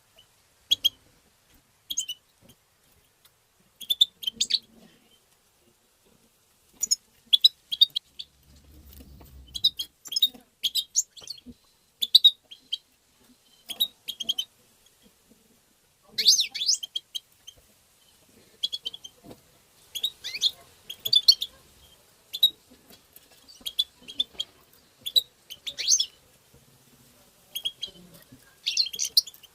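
European goldfinch calling: short clusters of high, twittering chirps coming in irregular bursts, with brief quiet gaps between them.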